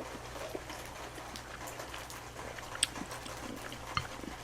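Soft eating sounds: quiet chewing with a few small clicks.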